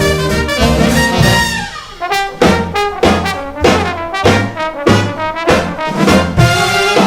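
Background music: a jazz dance-band recording with trumpets and trombones, a held chord giving way after about two seconds to short rhythmic stabs over a bass line.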